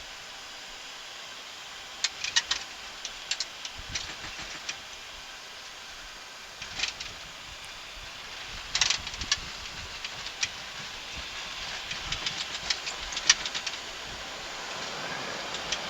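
Embraer 175 airliner cockpit during touchdown and landing rollout: a steady rush of airflow and engine noise, with sharp knocks and rattles starting about two seconds in as the wheels run on the runway. The noise grows slowly louder toward the end.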